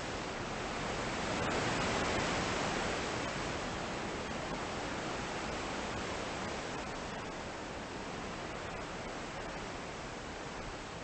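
Steady rushing noise, like hiss or static, swelling to its loudest about two seconds in and then slowly fading.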